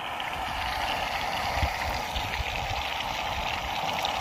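Steak sizzling in butter in a pan over the heat: a steady crackling hiss, with a few soft low thumps around the middle.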